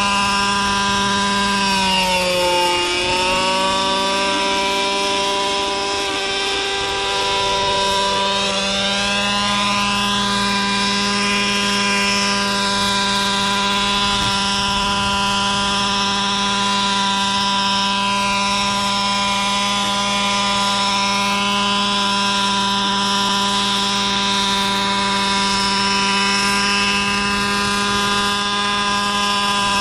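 Gas-engined JR Ergo radio-controlled helicopter with a B&H Hanson exhaust, running steadily with its rotor turning. The engine note sags in pitch about two seconds in and comes back up within a second or two, then holds steady.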